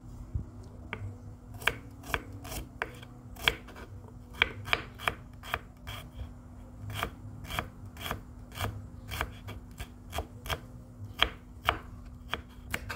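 Kitchen knife slicing shallots on a wooden cutting board: a run of sharp taps, irregular at about two to three a second, each as the blade comes down through a slice onto the board.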